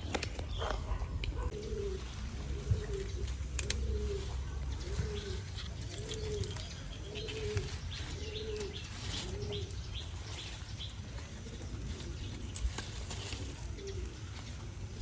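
A run of short, evenly spaced cooing calls, nearly two a second, that grow fainter and sparser after about nine seconds, over a steady low rumble.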